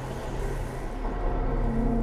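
Strong sandstorm wind blowing as a dense, low rumbling rush. Music swells in about a second and a half in.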